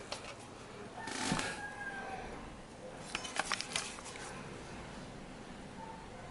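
Quiet handling of an opened metal set-top box, with a few light clicks and knocks about three seconds in over low room noise. A faint drawn-out call with a slightly falling pitch sounds in the background about a second in.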